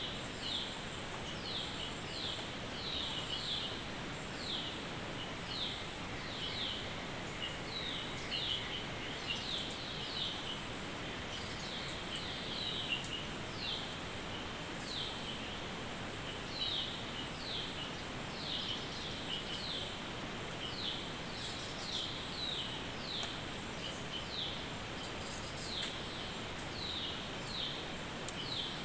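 Forest background: short, high chirps that fall in pitch, one or two a second, over a steady hiss, with a faint high steady tone above.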